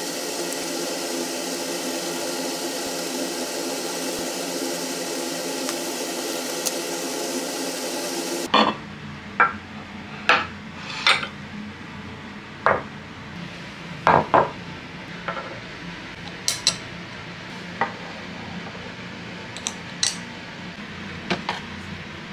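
A steady hum with many even tones for the first eight seconds or so, cutting off suddenly. Then scattered sharp clinks and knocks of dishes and tableware being handled and set down, about a dozen of them.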